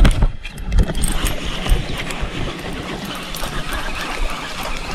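A hooked fish splashing and thrashing in the water as it is brought in, with knocks and rustling close to the microphone. It starts suddenly and runs on as a busy, noisy splashing.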